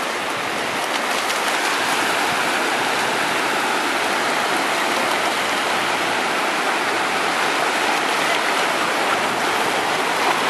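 Small ocean waves washing steadily in the shallows at the water's edge, a constant rushing noise.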